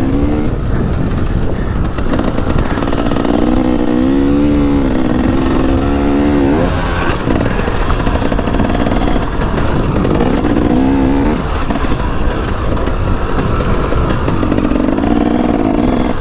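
Dirt bike engine ridden hard around a motocross track, its pitch rising and falling in spells as the throttle is opened and closed, under heavy wind noise on the rider's camera microphone.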